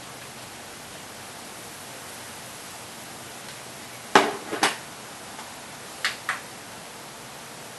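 Two pairs of short clicks from the front-panel buttons of a Pioneer Elite receiver being pressed to step through its setup menu, the first pair about four seconds in, the second about six seconds in, over a steady background hiss.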